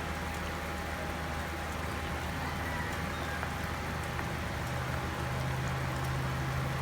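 Chicken wings frying in a pan, a steady, even sizzle of hot oil.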